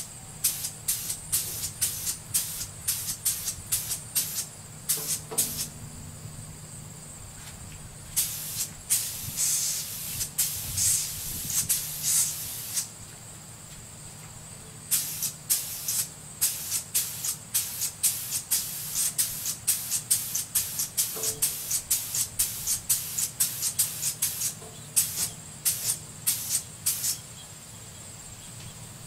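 Air-fed paint spray gun hissing in short, quick trigger bursts, about two a second, with one longer continuous spray of several seconds about a third of the way through.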